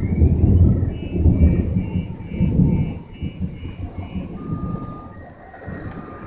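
Thunder from a close positive cloud-to-ground lightning strike: a loud low rumble for about three seconds that then fades away.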